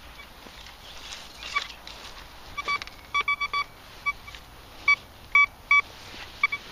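Thracian metal detector sounding a series of short beeps of one pitch as its coil passes over a dug hole: a quick run of several beeps about three seconds in, then single beeps, signalling a metal target in the hole.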